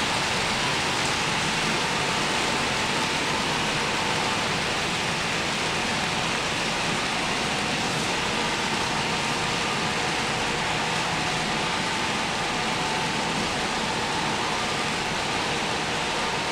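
Steady rushing rumble of model trains rolling on the track of a large model railroad layout, even and unbroken throughout.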